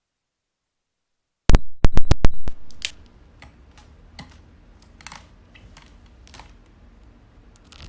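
Dead silence, then from about a second and a half in a quick run of sharp clicks and knocks, followed by fainter scattered taps over a low hum. It is handling noise from equipment being touched and connected, picked up through the sound card's input while the setup is switched to the Orotune TM-02.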